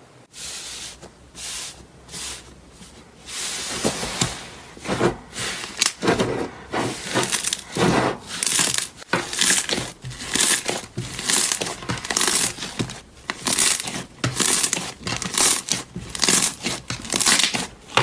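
Slime being squeezed and pressed by hand, crackling and crunching in a quick series of bursts about twice a second.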